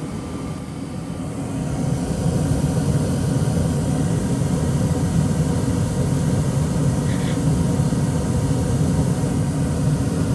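ICP gas furnace running, a steady low roar of the burners and air moving, growing louder about two seconds in and then holding steady.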